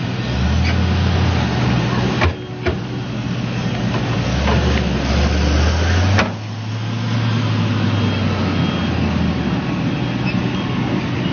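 New Holland crawler excavator's diesel engine running under load as the boom and bucket work to pull the machine out of the pit. A deep low drone comes and goes in stretches of a few seconds, with two brief breaks.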